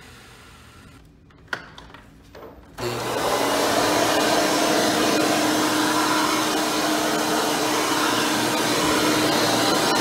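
Hoover Turbopower 4000 upright vacuum, a 7-amp motor with a retrofit 20-blade fan impeller and a soft nylon-bristle brush roll. After a few quiet clicks and knocks it starts up suddenly about three seconds in, then runs at a steady loud rush with a hum under it as it is pushed over carpet.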